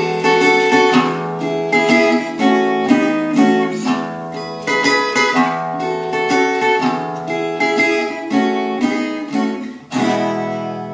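Metal-bodied tricone resonator guitar fingerpicked in a steady run of ringing notes. Near the end a final strummed chord is struck and left to ring out.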